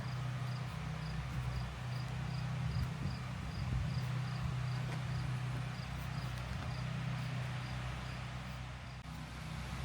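An insect, likely a cricket, chirping steadily at about two to three high chirps a second, over a steady low hum.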